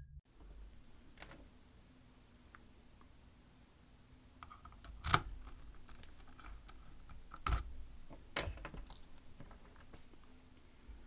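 Small sharp metallic clicks and rattles from a lock and lockpicking tools being handled, a few seconds apart, with the loudest clicks about five and seven and a half seconds in, and two more close together soon after.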